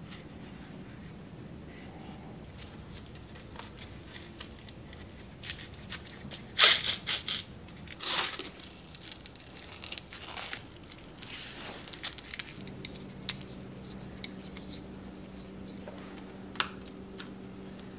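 Hook-and-loop (Velcro) straps being ripped apart and pressed shut several times while a bike-light battery pack is strapped to a bicycle frame, with light handling clicks and one sharp click near the end.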